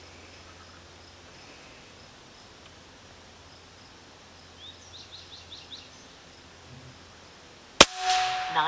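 A Benjamin Bulldog M257 pre-charged pneumatic air rifle fires a single shot near the end, a sharp report. Before it, a bird chirps briefly about halfway through.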